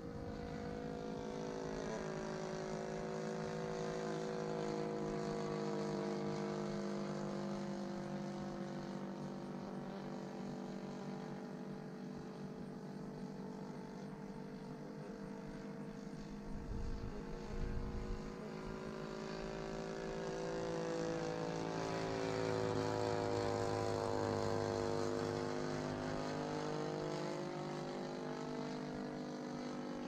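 Radio-controlled model airplane's motor and propeller running in flight, the drone swelling and falling twice as the plane passes, with its pitch bending as it goes by. A few low bumps about halfway through.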